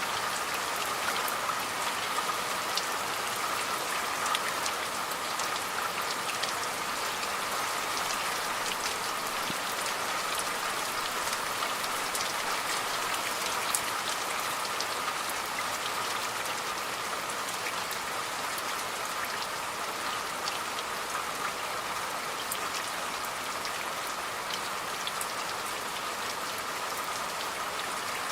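Steady rain falling, a constant hiss with many sharp ticks of individual drops hitting a surface.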